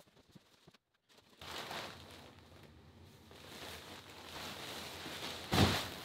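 Plastic wrap rustling as a wrapped mattress is handled and lifted, then one heavy thud near the end as the mattress drops onto the bed base.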